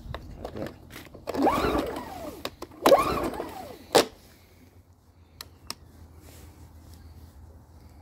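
Two pulls on the recoil starter of a Yardworks 950W inverter generator, a second or so apart. Each time the small four-stroke engine turns over with a whir that rises and falls in pitch but does not catch. A sharp click follows about four seconds in.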